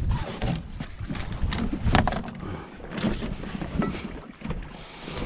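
Wind buffeting the microphone aboard a small sailboat, with scattered knocks and clatter from gear being handled in the cockpit; one louder knock about two seconds in.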